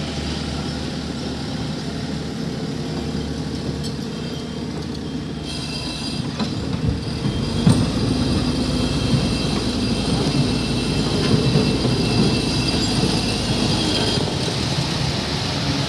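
Backhoe loader working gravel: its diesel engine runs under load with metallic rattling and thin, high squealing tones from about five seconds in. It grows louder from about eight seconds in.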